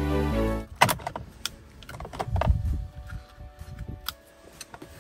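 Background music that stops about half a second in. Then a run of sharp clicks and knocks from a screwdriver and plastic parts at a car's steering column as the wiper stalk is worked loose.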